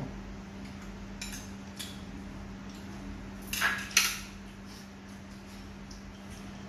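Chopsticks clicking against porcelain rice bowls and dishes at a meal: scattered light clinks, with a louder clatter of a few knocks about three and a half to four seconds in. A steady low hum runs underneath.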